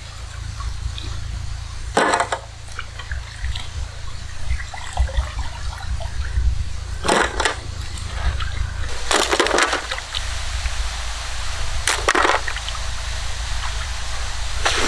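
Water sloshing and splashing in a steel pot as crab pieces are washed by hand. Four or five short, louder splashes stand out over a steady low rumble.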